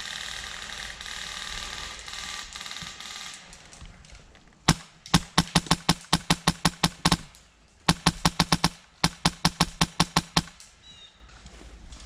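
Airsoft gun firing three bursts of rapid shots, about six or seven a second, with a steady motor hum under each burst. The shooting starts about five seconds in, after a stretch of indistinct noise.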